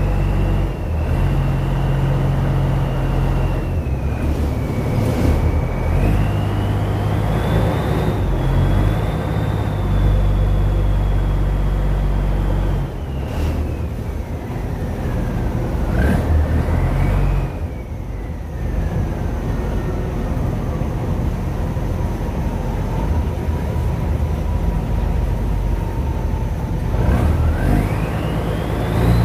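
Boat engine running steadily, with a thin high whine that slowly rises and falls over the half-minute.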